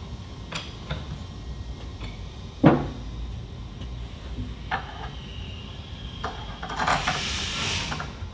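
Hand tools and metal parts being handled on a workbench while a handle is threaded in and tightened with a wrench: scattered clicks and clinks, with one louder knock about two and a half seconds in and a rushing hiss for about a second near the end.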